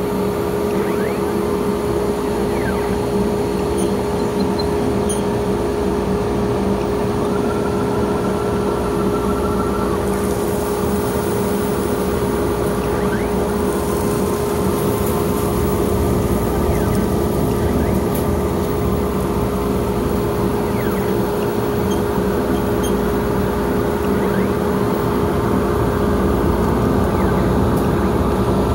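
Dust collection system running, a 1 hp Jet portable dust collector boosting the line to the main collector: a steady motor hum with air rushing through the hose and CNC dust boot as it sucks up a pile of sawdust. A brief higher whine comes in about seven seconds in.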